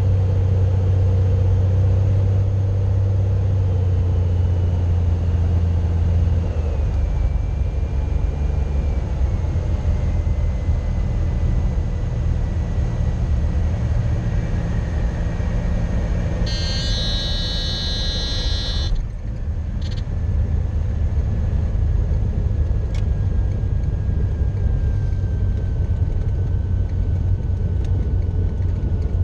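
Cessna 182's six-cylinder piston engine and propeller droning, heard from inside the cockpit, with the power easing back about six seconds in. Near the middle a high stall-warning horn sounds for about two seconds as the plane flares, then a brief knock as the wheels touch down, followed by a steady rumble of the rollout.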